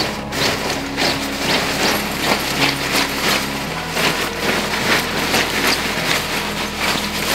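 Hilleberg Una tent's fabric rustling and crinkling in rapid, irregular scrunches as it is pulled from its bag and handled.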